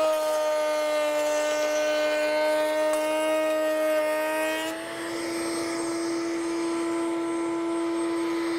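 Table-mounted router spinning a groove-cutting bit while a board is fed through. The steady whine drops slightly in pitch under the cutting load. About five seconds in the cut ends and the router runs on free, a little higher and lighter.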